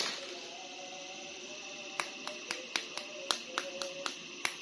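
A quick run of about ten short, sharp plastic clicks and taps, roughly three a second, starting about two seconds in: a plastic action figure being handled and set down.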